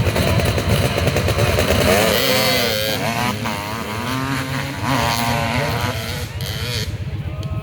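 Harley-Davidson V-twin motorcycle engine revving hard under load on a hill-climb run, its pitch rising and dropping repeatedly. The sound thins out near the end.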